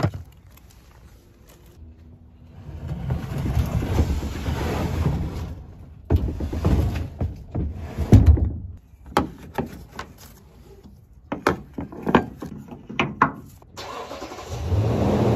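A pickup truck's engine runs and its rumble rises as it pulls past near the end. Before that come a string of sharp clicks and knocks from latches and gear being handled.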